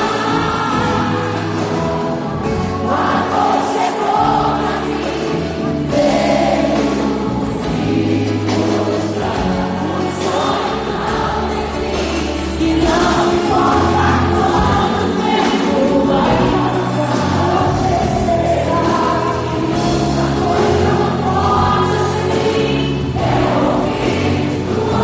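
Live pop music at a concert: female singers over a live band, with many voices singing together, heard loud and close.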